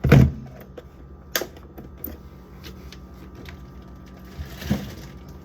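Food items and containers being handled and set down while sorting a fridge: a heavy thump just as it begins, a sharp click about a second and a half in, light clicks, then rustling and a duller thud near the end.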